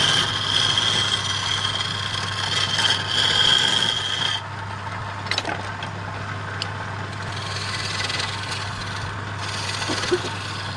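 Woodturning: a tool cutting and rubbing against wood spinning on a lathe, with a steady high whine over a low steady hum; the whine and most of the cutting noise stop about four and a half seconds in, leaving the hum and a few light clicks.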